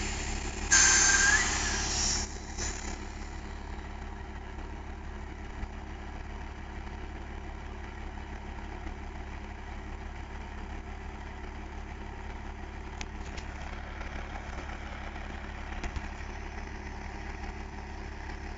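Semi-truck's diesel engine idling steadily. About a second in there is a loud burst of hiss lasting about a second and a half.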